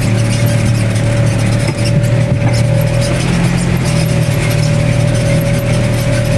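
Polaris RZR side-by-side driving through a shallow creek: a steady engine drone with a high whine that drops out briefly about three seconds in, over water splashing.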